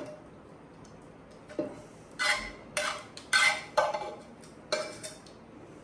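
Metal fork scraping and clinking against a frying pan while serving fried fish out of it: about half a dozen short strokes, starting about a second and a half in.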